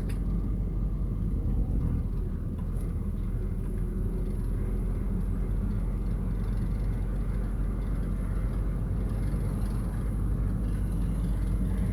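Vehicle driving slowly along a road: a steady low rumble of engine and road noise with no sudden events.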